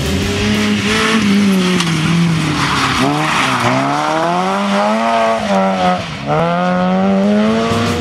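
Peugeot 106 rally car's engine revving hard through a loose gravel corner. The engine note drops sharply twice, about three and a half and six seconds in, and climbs again each time, with a hiss of tyres sliding on gravel in the first few seconds.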